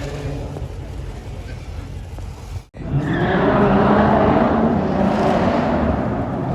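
A car engine rumbling low, then, after a sudden short break, a much louder car engine running hard.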